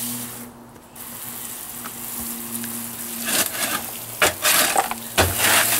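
Hose spray nozzle hissing as it fills a plastic barrel of charcoal with water, the hiss breaking off briefly about half a second in. From about three seconds in, rough scraping and sloshing as the wet charcoal is stirred with a long-handled tool.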